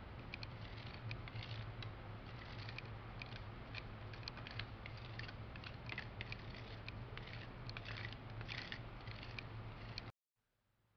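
A plastic spreader card scraping and tapping across a plastic capsule-filling plate, spreading powder into the capsule holes. The result is a run of many small scrapes and clicks over a steady low hum. The sound cuts off suddenly near the end.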